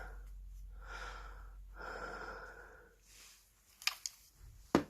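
A person breathing close to the microphone, three long breaths, followed near the end by two sharp clicks of something being handled.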